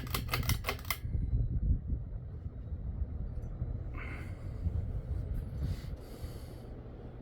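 A 52-inch builder-grade ceiling fan switched to high speed by its pull chain: a quick rattle of clicks in the first second, then the motor's steady low hum with the rush of moving air.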